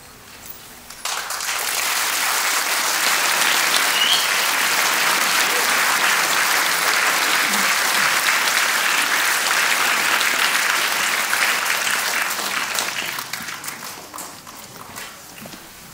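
Concert audience applauding at the end of a guzheng piece. The applause breaks out suddenly about a second in, holds steady, then thins to scattered claps near the end.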